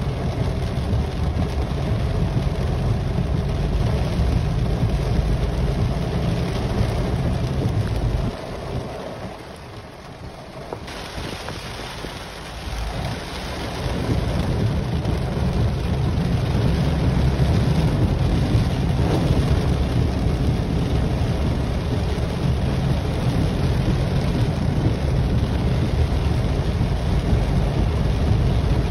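Heavy rain drumming on a car, heard from inside the cabin as a steady rushing noise with a deep rumble. It drops suddenly quieter about eight seconds in and comes back up around fourteen seconds.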